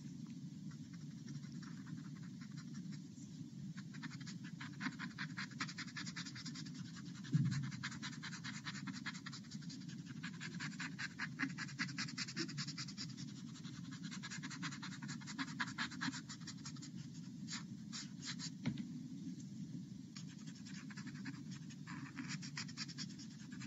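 Paper blending stump rubbing 2B pencil graphite into sketchbook paper in many quick small circular strokes, a faint dry scratching as the shading is smudged out. A brief low thump about seven seconds in.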